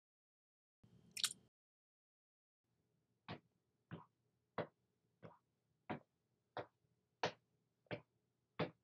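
Slow footsteps on a hard floor, nine even steps about two thirds of a second apart, starting a few seconds in. A short noise is heard about a second in.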